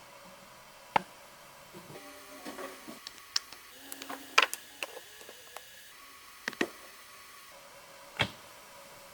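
Irregular sharp knocks and clicks, about eight of them, spaced unevenly over a faint steady hiss.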